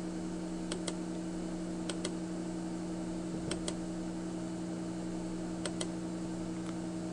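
Computer mouse button clicking about five times, a second or two apart, most clicks a quick press-and-release pair, as vertices are placed one at a time with Ctrl held and the left button clicked. A steady low hum runs underneath.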